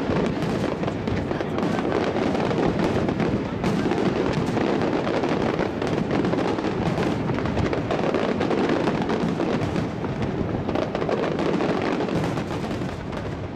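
Aerial fireworks shells bursting in a dense, continuous barrage, their booms and crackles running together with no pauses.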